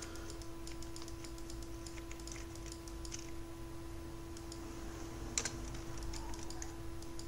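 Light clicking of a computer keyboard and mouse: a quick run of small clicks over the first three seconds and one sharper click a little past five seconds, over a steady low hum.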